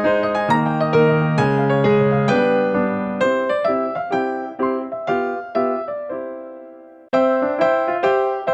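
Background piano music: a light melody of separate notes, each struck and left to ring. It fades to near quiet about seven seconds in and starts again at once.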